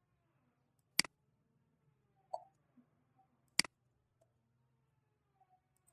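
Two sharp computer mouse clicks, each a quick double tick of press and release, about two and a half seconds apart, with a softer tap between them over a faint low hum.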